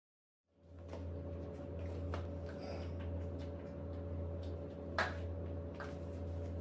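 A steady low hum begins suddenly about half a second in, with a few light clicks and knocks over it, the sharpest about five seconds in.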